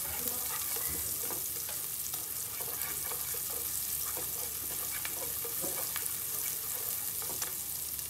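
Sliced shallots sizzling in hot oil as they fry until fragrant, stirred with chopsticks that tick and scrape against the pan.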